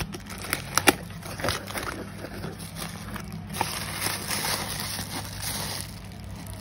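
A parcel being unwrapped by hand: a few sharp clicks and snaps in the first second and a half, then longer stretches of rustling packaging, over a steady low hum.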